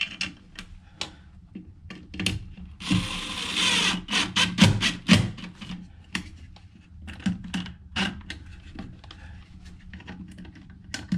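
Cordless drill driving screws through the plastic base of a battery disconnect switch into wood: one run of the drill lasting about a second, about three seconds in, amid repeated sharp clicks and knocks of the tool and switch being handled.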